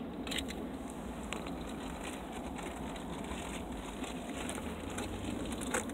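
Steady low rumble of a car's interior, with a few faint clicks.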